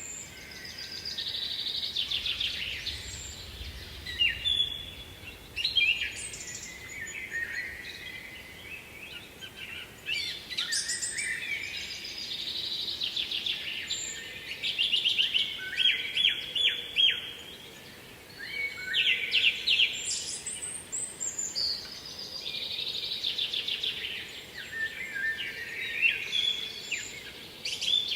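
Songbirds singing: short, fast-trilling high phrases of a few seconds each, repeated every few seconds.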